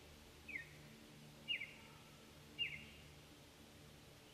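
A bird calling: three short, falling chirps about a second apart, faint, over a low steady hum.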